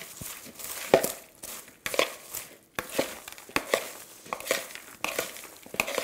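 Metal spoon tossing popcorn in a bowl to coat it with butter: dry rustling and crunching of the popped kernels, with the spoon scraping and clicking against the bowl in repeated, irregular strokes.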